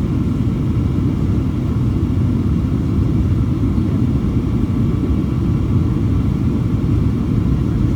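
Steady low rumble inside the cabin of a Boeing 737-800 in motion: engine and airflow noise, even in level throughout.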